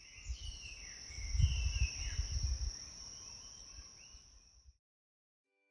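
Outdoor ambience: insects drone steadily at a high pitch while birds chirp, and wind rumbles on the microphone, strongest between about one and three seconds in. All of it cuts off abruptly near the end.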